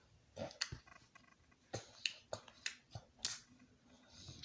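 Small plastic toy pieces clicking and tapping as they are handled, a faint run of short, irregular clicks.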